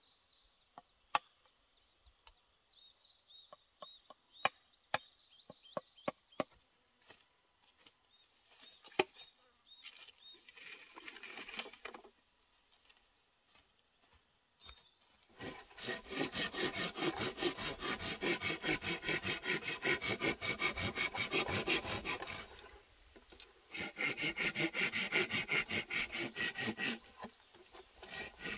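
A hand saw cutting through a green bamboo pole in rapid back-and-forth strokes, in two long bouts with a short pause between. Earlier, a scattered series of sharp knocks from chopping bamboo.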